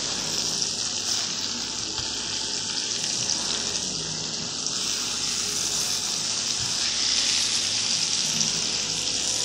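Burger patties sizzling in a skillet, a steady high hiss of frying.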